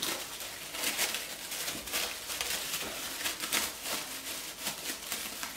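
Thin plastic film crinkling and rustling as hands peel it off a rolled tapa, a run of irregular light crackles.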